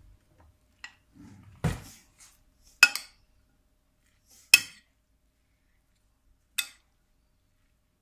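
A metal spoon knocking against a ceramic bowl while mixing rice, about five separate clinks spaced irregularly a second or more apart.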